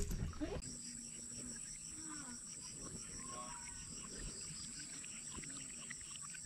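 Insects calling steadily: a thin high-pitched buzz with a fast, evenly pulsing trill just below it, coming in about half a second in.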